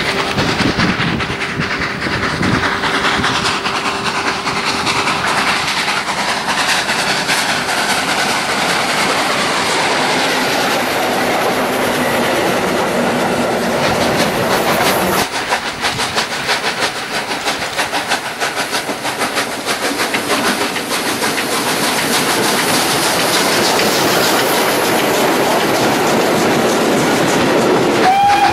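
Model garden-railway train running on its track: a dense, rapid clickety-clack of the small wheels on the rails, steady throughout, with a steady hum during the first several seconds. A whistle starts right at the end.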